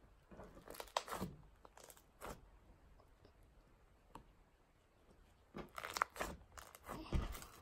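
Hands squishing, stretching and pressing a soft butter slime (clay mixed into a glue base) against a tabletop, in irregular bursts: a cluster about a second in, a short one near two seconds, and a longer run near the end.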